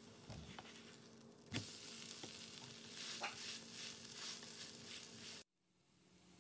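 Bamboo-shoot and chive pancake sizzling as it fries in oil in a pan, with a few sharp clicks. The sizzle grows louder about a second and a half in and cuts off abruptly near the end.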